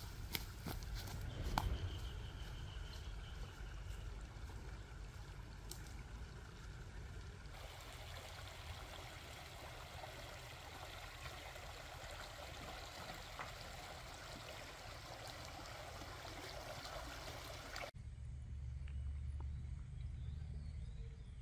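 Water running over stones in a shallow rocky stream, a steady rushing hiss. In the first couple of seconds, a few crackling steps on dry leaf litter.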